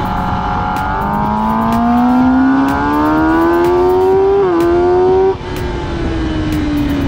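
Racing motorcycle engine heard onboard, accelerating hard with its pitch climbing. About four and a half seconds in there is a quick upshift, then it keeps pulling. The throttle shuts abruptly a little later, and the note falls away as the bike slows for the next corner.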